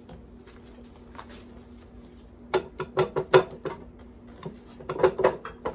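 Metal parts of a Mercury 150 outboard's midsection clanking and knocking as the exhaust housing is worked loose and slid apart: a quiet start, then a burst of sharp clinks and knocks about halfway through and another near the end.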